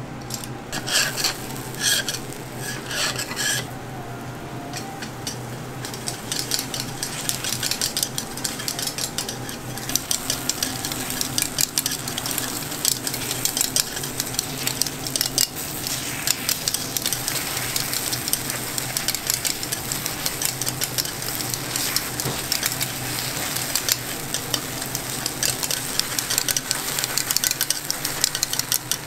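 Metal picks clicking and scraping in a takoyaki grill pan as the balls are turned, over the sizzle of cooking batter. A steady low hum runs underneath.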